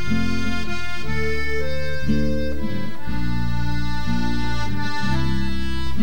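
Instrumental passage of a song played on accordion, with held chords under a melody line.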